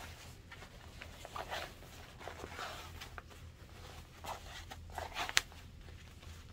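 Fabric rustling and crinkling in irregular handfuls as a sewn bag of cotton and waterproof canvas lining is turned right side out by hand, with one sharp tap a little past five seconds in. A low steady hum runs underneath.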